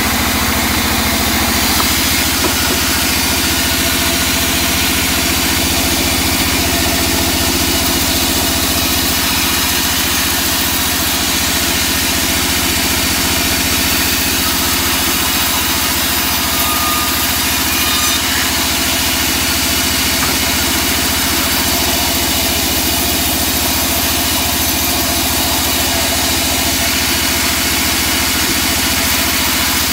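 Large vertical band saw running steadily: a constant, even machine hum with no rise or fall that would mark the blade biting into wood.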